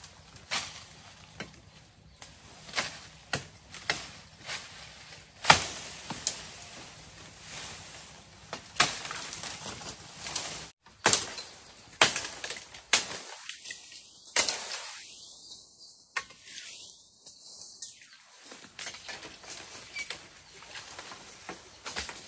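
Irregular sharp knocks of a blade chopping at bamboo, with the rustle of dry bamboo stalks and leaves between the blows.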